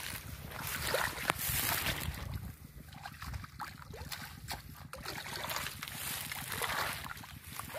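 Hands splashing and sloshing in shallow muddy water while groping for fish along a grassy bank, with wet grass rustling, in irregular bursts.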